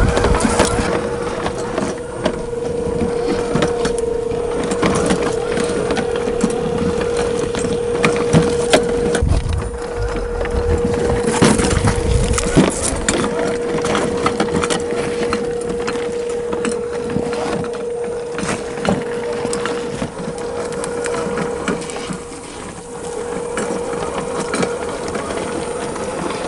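Tamiya CC-01 radio-control car driving over rough ground: its 55-turn brushed motor and gearbox give a steady whine, over a dense crunching and clicking of tyres and chassis on dirt and debris, with a few louder knocks midway.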